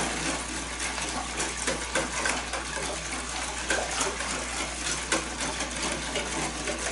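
Wire whisk stirring a salt-and-sugar brine in a plastic tub of water: irregular sloshing and swishing with many light clicks of the whisk against the tub as the salt and sugar are mixed in to dissolve.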